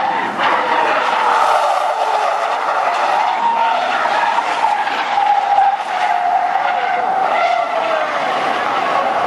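Car tyres squealing through a long high-speed sideways drift: one sustained squeal that wavers a little in pitch and drops slightly near the end, over the car's engine running hard.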